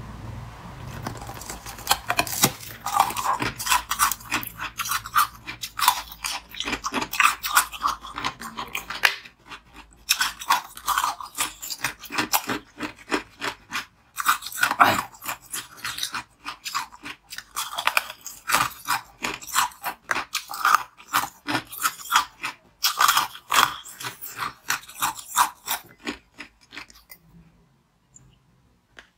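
Close-miked biting and chewing of hard frozen ice: dense, crisp crunches in quick succession with a couple of brief pauses, fading out near the end.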